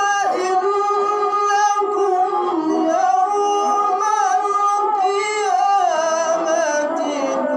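A qari's high voice reciting the Quran in melodic tilawah style into a hand-held microphone, with long held notes that waver and turn in ornaments.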